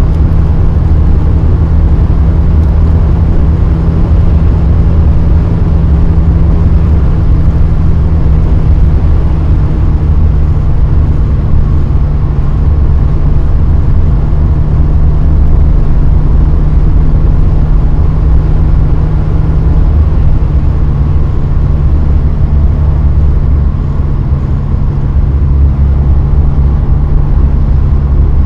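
Mercedes-Benz 200 E W124's M102 inline four-cylinder engine running steadily at autobahn speed, heard from inside the cabin with tyre and wind noise. Its pitch dips slightly about two-thirds of the way through and rises a little near the end.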